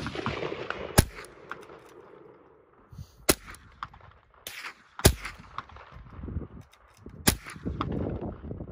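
A quiet-firing gun, the older of two, shot four times at roughly two-second intervals, with fainter clicks and knocks between the shots.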